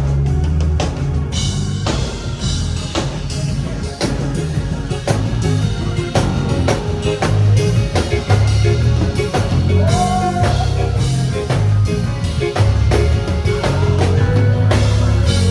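Rock music with a drum kit and guitar playing a steady beat.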